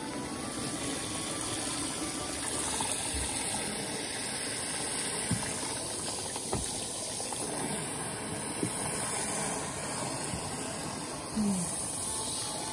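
Water running steadily from a handheld shower head into sudsy bathwater, with a few light knocks.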